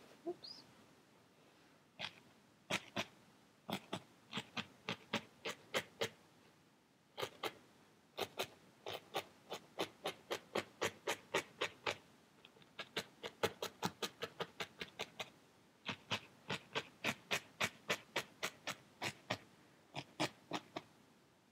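A barbed felting needle stabs again and again through wool into a foam felting pad. Each stab makes a short, sharp tick, about four a second, in runs of a few seconds broken by brief pauses.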